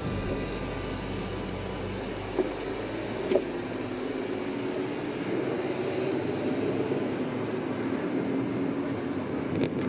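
Car cabin noise while driving slowly in city traffic: a steady hum of engine and tyres, with two short knocks a few seconds in.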